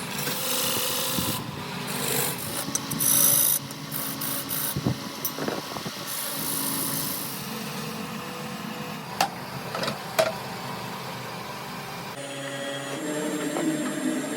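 Woodworking tools working wood: power-tool running and abrasive rubbing on wood in several short, changing stretches, with two sharp knocks about nine and ten seconds in.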